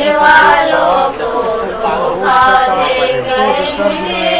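Slow, drawn-out singing, long held notes that waver in pitch.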